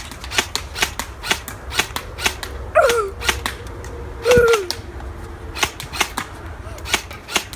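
M4 airsoft gun firing a long string of single shots, each a sharp snap, about three a second at an uneven pace.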